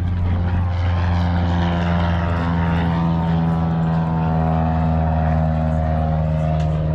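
An engine droning steadily: a strong low hum with overtones whose pitch drifts slightly.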